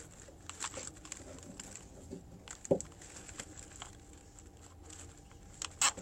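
Faint clicks and rustling from hands handling a plastic zip tie as it is threaded through a cardboard drink carrier, with a sharp click near the end. A brief low pitched sound comes a little before halfway.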